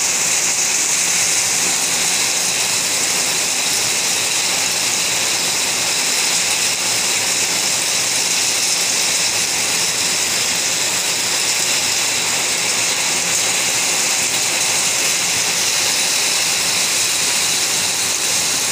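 Heavy rain pouring down, a steady dense hiss with no break or change.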